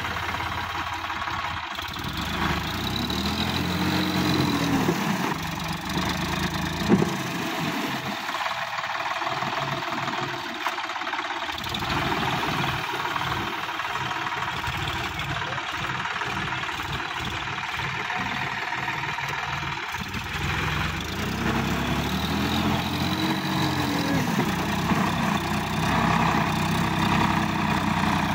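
Sonalika DI 60 tractor's diesel engine running hard under load as the tractor churns through flooded paddy mud and struggles up onto the embankment. A couple of times the engine pitch rises and falls.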